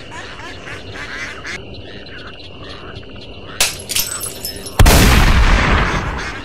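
Cartoon soundtrack of a marsh: frogs croaking and ducks quacking. A sharp click comes a little past halfway, then a loud shotgun blast that dies away over about a second and a half.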